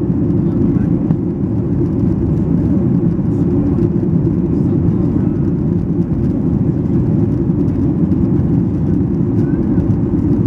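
Steady low roar of a Boeing 737-800's CFM56 turbofan engines and rushing airflow, heard inside the passenger cabin during the climb after take-off.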